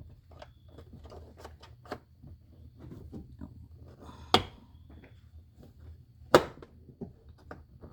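Plastic car door trim panel being handled and pushed onto the door, with a run of small clicks and rattles and two loud sharp knocks about four and six seconds in.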